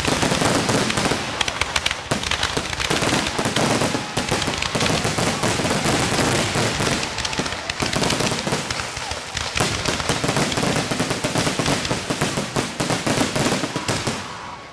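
Aerial fireworks going off in a dense, continuous barrage of rapid cracks and bangs, many reports overlapping each second.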